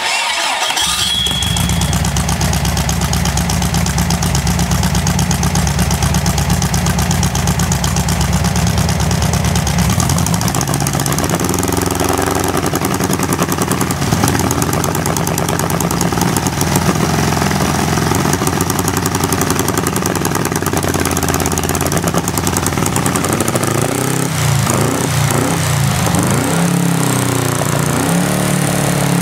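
Small engine catching and starting, then running steadily through its muffler. From about ten seconds in its speed wavers, and near the end it drops and picks up again as the throttle is worked.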